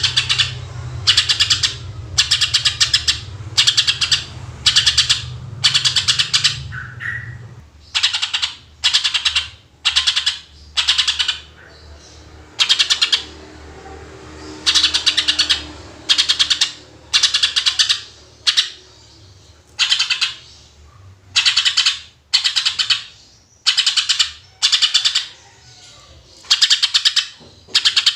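Cucak ijo (green leafbird) calling in short bursts of very rapid, harsh rattling notes, the 'tembakan' shooting phrases, repeated about once a second.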